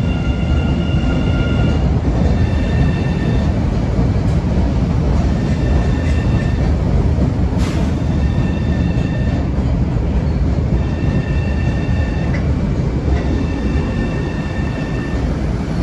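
New CRRC-built MBTA Red Line subway train pulling out of an underground station and speeding up past the platform. A loud, steady rumble of wheels and running gear is joined by high, steady whining tones that come and go in stretches of a second or two. There is a single sharp crack about halfway through.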